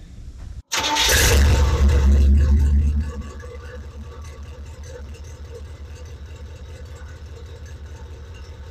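1972 Chevrolet Monte Carlo's V8 engine revving hard with a low rumble for about two seconds, then dropping to a steady, evenly pulsing idle.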